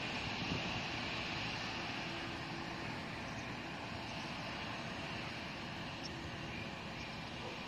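Rice combine harvester running steadily while cutting and threshing rice in the paddy, growing slightly quieter as it moves away.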